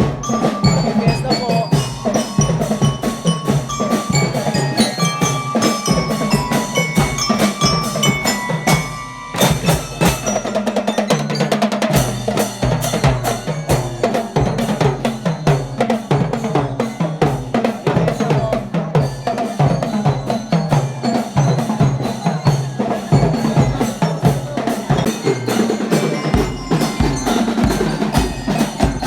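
Percussion music: drums keep a steady beat under a bright, bell-like mallet melody. It drops away briefly about nine seconds in.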